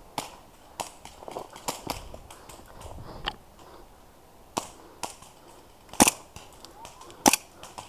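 Airsoft gas and CO2 pistols firing: about nine sharp pops at irregular intervals, the loudest two in the last two seconds.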